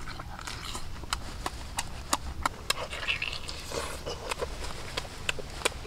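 A person chewing steamed cow lung with the mouth open: wet smacking clicks at an irregular pace.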